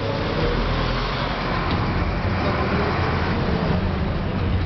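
Steady engine and road rumble heard from inside a crowded city bus.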